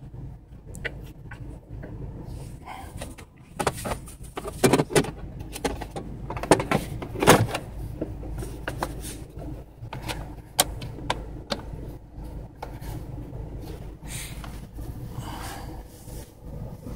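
Citroën Xsara Picasso 2.0 HDi diesel engine idling with a steady low hum, heard inside the cabin. Over it come a string of clicks and knocks from the plastic battery cover and the driver's seat being fitted back down over the battery, the loudest about five and seven seconds in.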